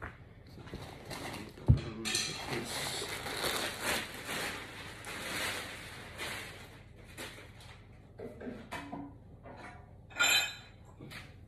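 Close household handling noises: a sharp knock, then several seconds of rustling and clattering, scattered clicks, and a short hissing burst about ten seconds in.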